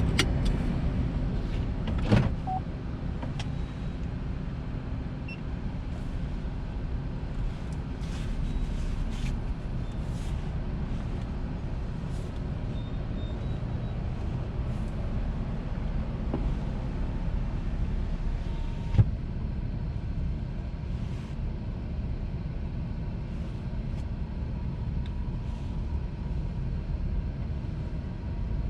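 Car driving along a city street: a steady low rumble of engine and road noise, with a sharp knock about two seconds in and another about nineteen seconds in.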